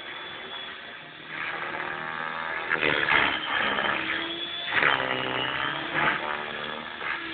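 Align T-Rex 600 radio-controlled helicopter flying 3D aerobatics: its rotor and drive whine rises and falls in pitch, with loud surges of rotor noise about three, five and six seconds in.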